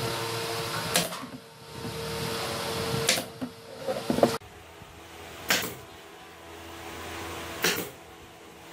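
Pneumatic brad nailer firing four single shots, each a sharp snap with a short burst of air, roughly two seconds apart, as brads are driven into plywood panels.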